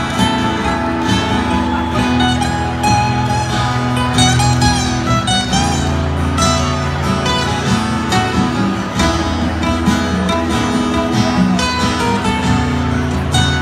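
Two acoustic guitars playing live together, heard through a concert sound system.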